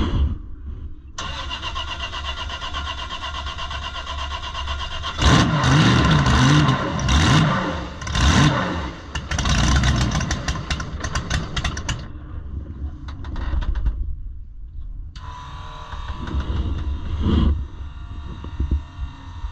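Drag boat engine being started: the starter cranks it with a steady whir from about a second in, it fires loudly and unevenly for several seconds, drops back, then is cranked again and fires once more near the end, while fuel is squirted into the intake by hand to prime it.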